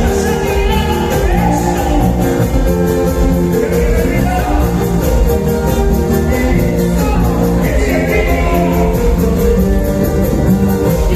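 Loud Latin American dance music with singing and a steady beat, played through a party sound system.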